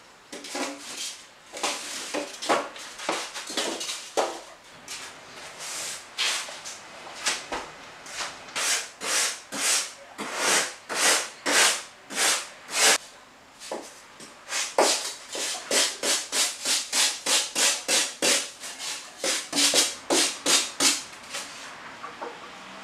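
Hand sanding or rasping of pink foam insulation board: a long run of rubbing strokes, about two a second at their quickest, with a short break a little before halfway.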